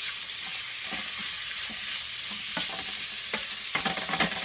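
Chicken pieces sizzling in hot oil in a frying pan, with a utensil scraping and knocking against the pan as they are stirred apart. The knocks come more often in the last second or so.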